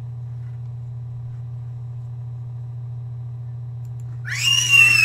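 A steady low electrical hum, then about four seconds in, a sudden loud, high-pitched scream with a wavering pitch.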